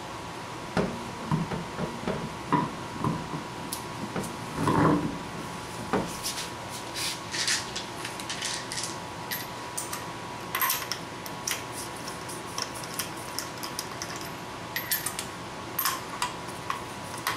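Metallic clicks, clinks and knocks as a car's front wheel is fitted back onto the hub and its lug nuts are handled and started on the studs, with one heavier thump about five seconds in.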